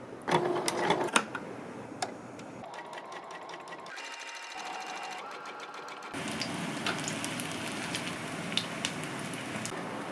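Domestic sewing machine stitching in short runs, its needle clattering in a fast even rhythm. About six seconds in it gives way abruptly to a steady crackling hiss.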